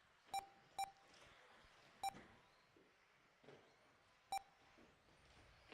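Four short electronic beeps at one steady pitch, irregularly spaced, from an RC race lap-timing system, each marking a car crossing the lap-counting loop.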